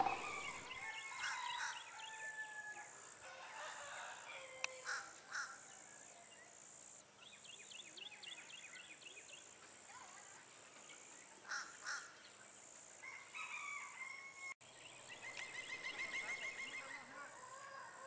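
Faint birdsong: a pileated woodpecker calling among other birds' scattered calls and chirps, with a rapid run of even notes near the end, over a steady high hiss.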